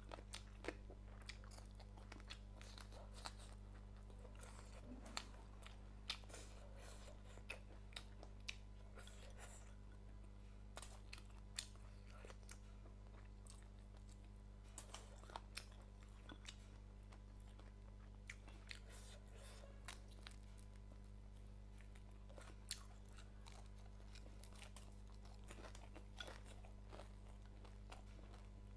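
A person chewing and biting crunchy food close to the microphone, in irregular crisp crunches and small clicks, over a steady low electrical hum.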